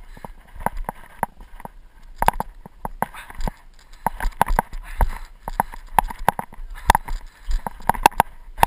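Irregular knocks and scuffs, several a second, of a person clambering over rough pine logs, picked up close by a hand-held action camera that is being jostled, with a low wind rumble on the microphone.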